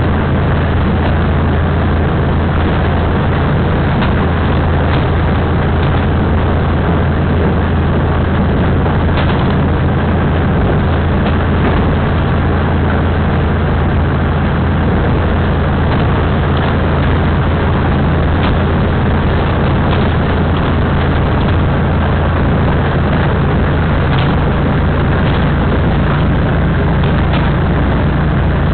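DR2700 diesel railcar running along the line, heard from inside the front of the car: a steady low diesel engine drone over running noise, with light clicks now and then.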